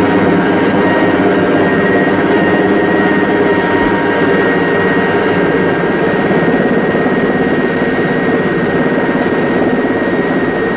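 A loud, steady mechanical drone like heavy engines running, with a thin high whine held throughout.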